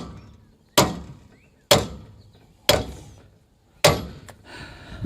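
Hammer blows on a rust-seized trailer hitch, struck to drive it out of the receiver: four sharp strikes about a second apart, each ringing briefly.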